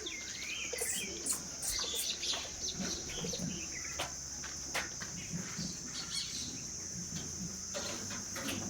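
Birds chirping over a steady, high insect drone, with a few short clicks.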